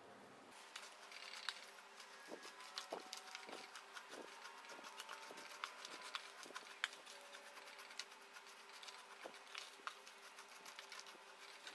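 Wooden spatula stirring dry rolled oats, nuts and seeds in a metal baking tray: faint rustling of the flakes with many irregular light clicks and taps, starting about half a second in.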